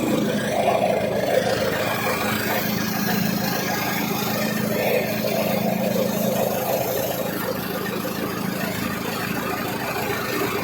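Straw-chopping fodder machine (chaff cutter) running steadily, its motor and cutting gear making a continuous mechanical drone with a steady hum.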